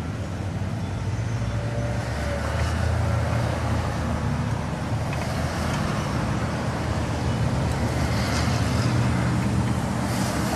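Steady low background rumble with a hum.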